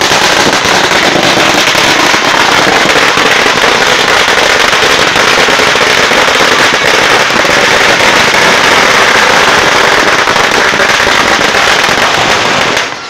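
A loud, dense barrage of firecrackers and fireworks going off, an unbroken run of cracks and bangs that stops shortly before the end.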